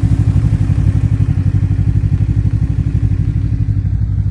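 Engine running steadily at a constant speed, with a fast, even pulsing beat.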